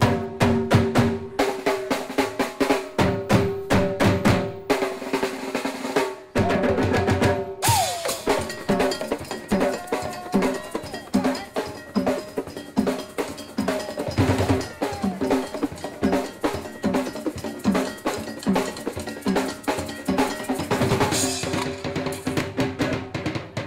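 A percussion ensemble playing a fast drum routine: sticks striking plastic buckets, barrels, drums and cymbals, with pitched strokes from a rack of PVC pipes.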